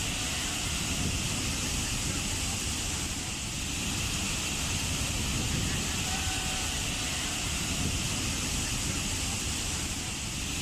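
Waterfall: a steady, even rush of falling water, unbroken throughout.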